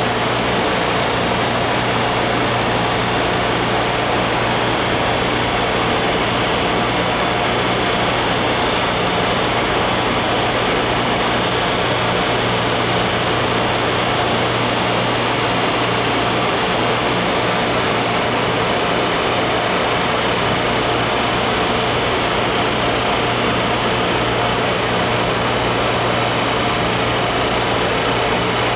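Steady mechanical hum with a fan-like whir and a low drone.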